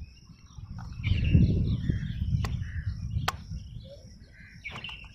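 Handling noise with two sharp clicks about a second apart as a hand turns the time-range selector of a Fuji MS4SA analog timer. Birds chirp in the background.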